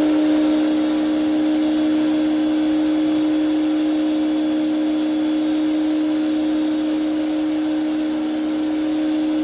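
Electric pressure washer running steadily at full speed with a steady hum, feeding a surface cleaner attachment whose water spray hisses on the floor.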